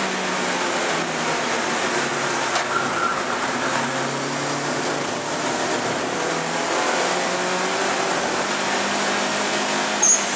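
Alfa Romeo 155 Turbo race car's engine running at speed, heard inside the cabin together with loud road and wind noise, its pitch rising and falling gently. A short, sharp high click about ten seconds in.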